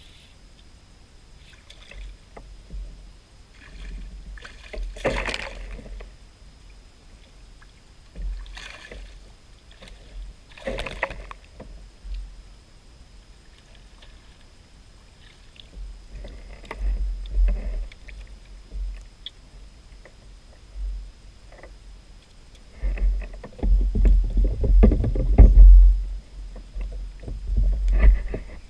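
Irregular knocks, rustles and bumps from gear being handled aboard a plastic fishing kayak, with two sharper noises early on. Bouts of low rumble grow loudest near the end.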